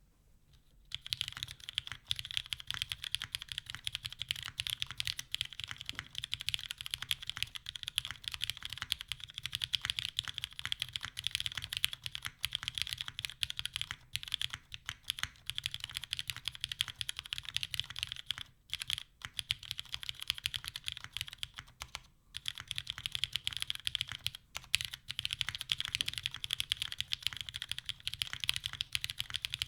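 Steady, fast typing on a custom mechanical keyboard, a TGR Jane V3 with lubed, filmed, retooled Cherry MX Black linear switches and GMK keycaps on a full aluminium top-mount plate without foam. The typing starts about a second in and pauses briefly a couple of times near the middle.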